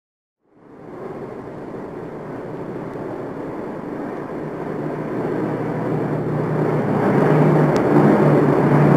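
A motor vehicle's engine running with a steady low drone, starting about half a second in and growing gradually louder.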